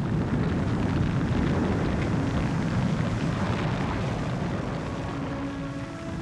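Steady deep rumble of a volcanic pyroclastic flow pouring down into the sea, easing slightly toward the end. Faint sustained music tones come in about five seconds in.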